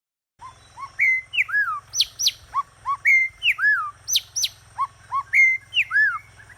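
A songbird singing a clear whistled phrase of short slurred notes ending in quick high upsweeps. The same phrase comes three times, about two seconds apart, over a faint low hum. It starts abruptly about half a second in.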